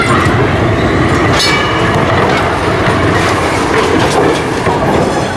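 City tram passing close by, its steel wheels clattering over the rails in a steady run of clicks and knocks.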